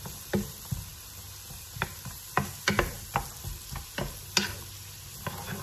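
Wooden spoon stirring diced vegetables in a nonstick pan, with irregular clicks and taps of the spoon against the pan over a faint sizzle of the vegetables cooking in butter.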